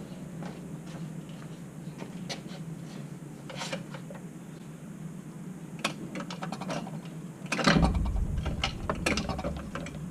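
Scattered metallic clicks and rattles of hand-tool work on the car, thickening into a run of clicks about six seconds in, with the loudest a knock about eight seconds in.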